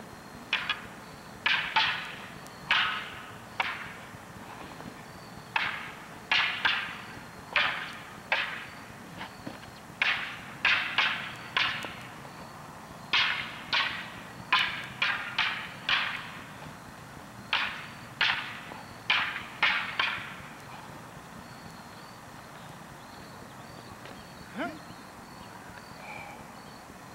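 Long wooden poles clacking together in a sparring exchange: sharp cracks that ring briefly, often two or three in quick succession, for about twenty seconds, then stopping.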